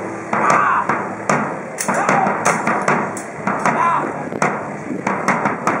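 Swords clashing in a staged historical sword fight: a string of sharp, irregular metallic strikes, several a second, over the murmur of a watching crowd.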